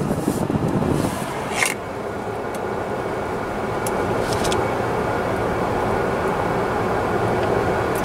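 Inside the cabin of a Genesis G70 accelerating through a left-hand ramp turn: steady road and engine noise that slowly grows louder, with a few faint clicks.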